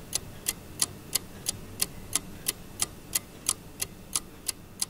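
Clock ticking, a sharp even tick about three times a second, laid over the opening title as a sound effect.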